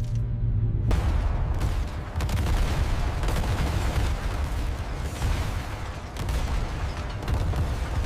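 Battle sound effects: dense gunfire and explosions over heavy low rumbling booms, starting suddenly about a second in after a brief held musical tone.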